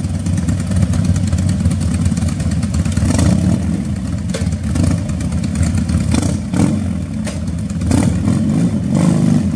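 Several motorcycle engines idling together, swelling briefly a few times as throttles are blipped.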